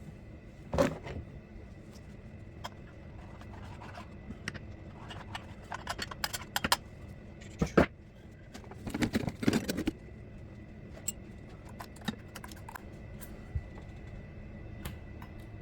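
Scattered clicks, taps and scrapes of hands and tools working on a chainsaw's body and parts, with a cluster of knocks about nine to ten seconds in.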